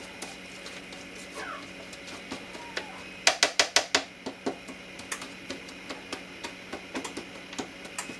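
Spatula scraping and tapping on a metal sheet pan while seeds are spread back out flat. A quick run of about seven sharp clicks comes about three seconds in, then lighter scattered taps.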